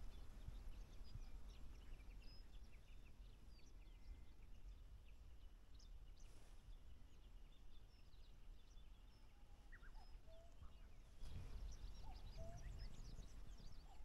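Faint wild birdsong: many small birds chirping and twittering in short high notes, with a few lower whistled notes from about ten seconds in. Low knocks and rumble come in about eleven seconds in.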